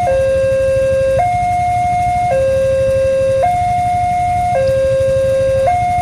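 Railway level crossing's electronic warning siren alternating between a low and a high tone, each held about a second, in a steady hi-lo pattern.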